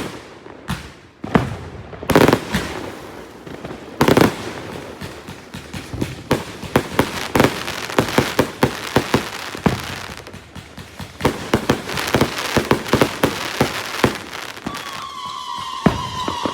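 A 168-shot consumer fireworks cake firing: a rapid run of bangs and crackling breaks, with heavier booms about two and four seconds in. A steady high tone joins near the end.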